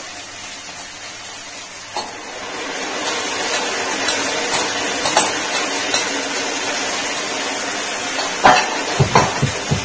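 Watery sauce mix poured into a hot pan of sautéed onions and capsicum on high flame, setting off a steady sizzle from about two and a half seconds in. Near the end, a spatula knocks against the pan several times.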